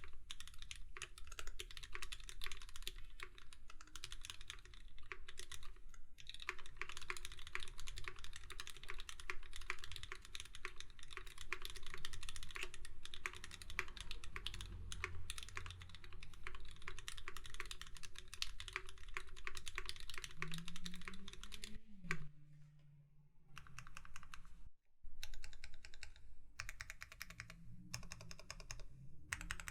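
Fast, continuous typing on a mechanical keyboard with lubed Gateron Milky Yellow linear switches, an aluminium plate and PBT keycaps. The typing pauses briefly about two-thirds of the way through, then resumes.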